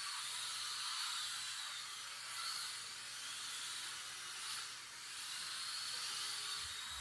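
Mini-Z MRD RC drift cars running laps: a faint high electric-motor whine that rises and falls with the throttle, over a steady hiss from the tyres sliding on the track.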